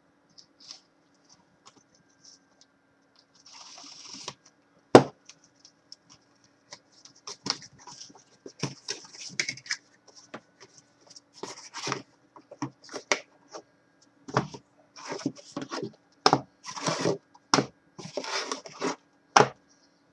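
A cardboard case being cut open and its card boxes taken out and stacked: scraping, rustling and a string of knocks, the loudest knock about five seconds in.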